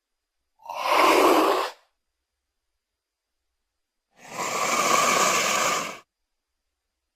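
Baryonyx dinosaur creature sound effect: two breathy, hissing exhales, the first short, about a second in, the second longer, starting about four seconds in, with dead silence between.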